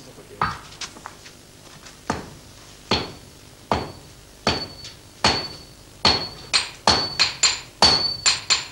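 Hand hammers striking a glowing lump of sword steel on an anvil in a traditional Japanese forge, each blow with a short metallic ring. The blows come about a second apart at first, then quicker and louder about six seconds in.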